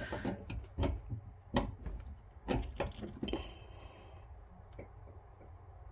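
Scattered sharp clicks and knocks of hands and a tool working the faucet's supply-line fittings under a bathroom sink, checking that they are tight, with a brief rustle a little past halfway.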